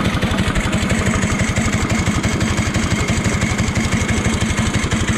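Dirt-oval racing kart engine idling with a steady, rapid chug.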